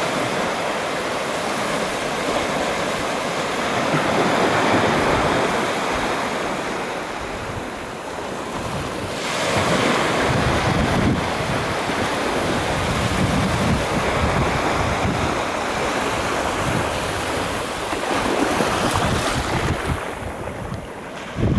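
Small waves breaking and washing up over the sand at the shoreline, with wind buffeting the microphone in gusts that grow heavier about halfway through.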